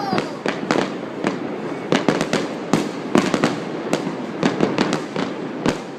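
Fireworks going off in quick succession: many sharp bangs and pops at irregular intervals, several a second, over a steady crackle.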